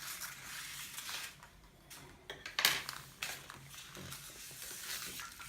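Handling of a chocolate surprise egg and its plastic toy capsule: rustling, with several sharp clicks, the loudest about two and a half seconds in.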